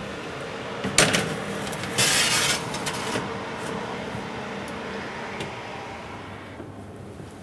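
Metal baking tray set onto an oven's wire rack and slid in: a sharp clack about a second in, then a short scraping slide of metal on metal, and a few lighter clicks.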